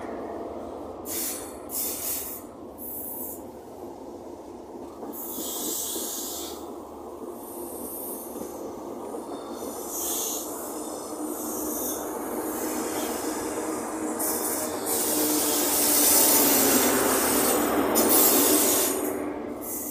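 A High Speed Train (Class 43 power cars with coaches) rolls past close by, with a continuous wheel and rail rumble and high wheel squeals that come and go. Near the end it gets louder as the rear Class 43 power car's diesel engine draws level.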